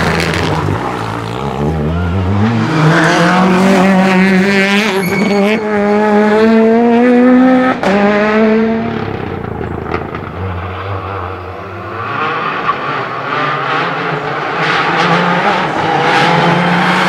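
Rally cars driven flat out on a tarmac stage, one after another, engines revving hard. In the first half one engine's pitch climbs steadily for several seconds before breaking off near 8 seconds. A second car's engine comes in loudly again from about 12 seconds.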